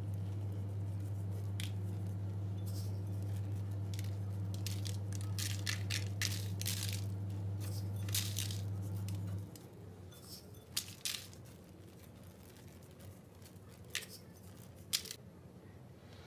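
Sesame and nigella seeds sprinkled by hand onto egg-washed pide dough on baking paper: scattered light ticks and patters. Under them a steady low hum, the loudest sound, cuts off suddenly about nine and a half seconds in.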